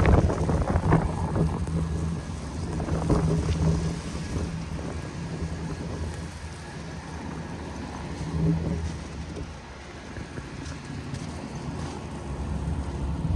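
Street traffic: a vehicle engine rumbling steadily, with wind noise on the microphone.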